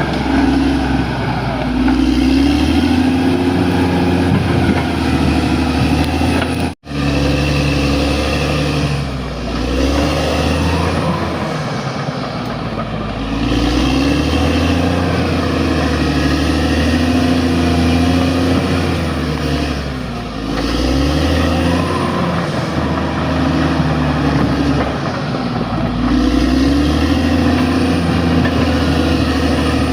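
Bulldozer's diesel engine running hard under load, its pitch rising and falling repeatedly as it works. The sound cuts out for an instant about seven seconds in.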